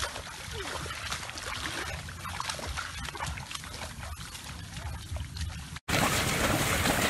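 Feet and legs splashing and wading through shallow water and rice stalks in a flooded paddy, with many small splashes and crackles. About six seconds in the sound cuts off briefly and comes back as a louder, closer wash of water and rustling.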